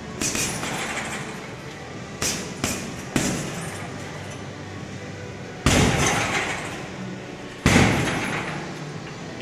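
Gloved punches and a knee strike hitting a hanging heavy bag: six sharp hits at uneven intervals, the two loudest about six and eight seconds in, each followed by a ringing decay of under a second.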